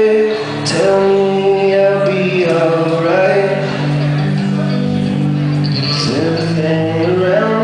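Live male voice singing a wordless melody in long held notes over sustained electric guitar chords.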